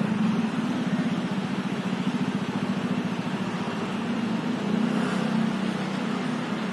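Steady low drone of a diesel engine running at low power, with a fine rapid pulsing, swelling slightly about five seconds in.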